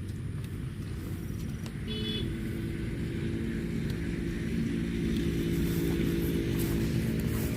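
An engine running steadily, its hum coming in about two seconds in over a low rumble.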